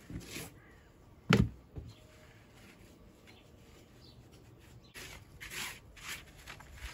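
A single sharp, heavy knock a little over a second in, then quieter rasping sounds near the end.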